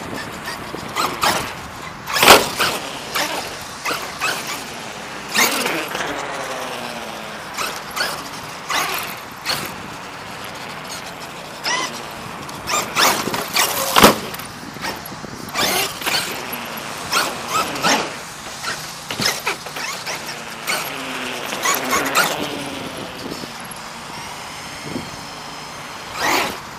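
Traxxas E-Revo 2.0 RC monster truck's electric motor whining up and down in pitch as it speeds up and slows. The truck also makes repeated sharp knocks and thumps, the loudest about two seconds in and again near the middle.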